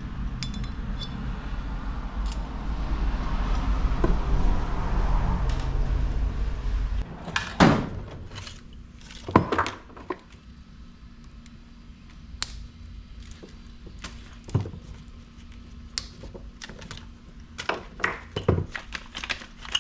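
Knocks, clinks and thunks of metal parts being handled and fitted together as the gas outlet nozzle is screwed into a propane burner tube. A low rumbling noise fills the first several seconds, then stops, leaving single knocks every second or two.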